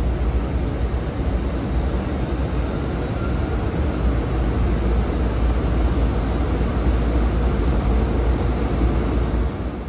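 EH500 electric freight locomotive hauling a container train slowly past: a steady, deep rumble of the locomotive and wagons on the rails.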